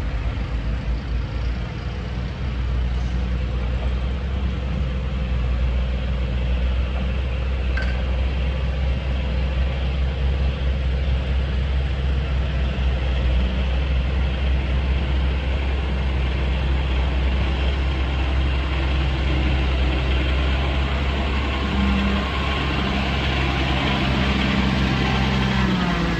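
Motor grader's diesel engine running steadily with a low drone, its note rising a little near the end.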